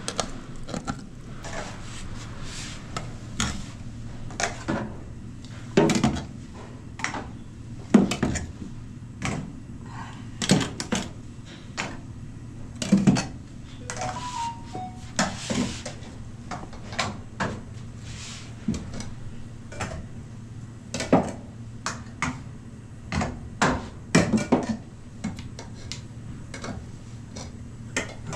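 Kitchen clatter: dishes, pots and utensils clinking and knocking at irregular intervals over a steady low hum.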